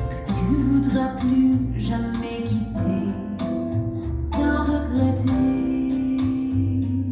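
Recorded song with a female voice over plucked guitar and bass, played back through KEF LS50 Meta loudspeakers driven by a Rega io amplifier.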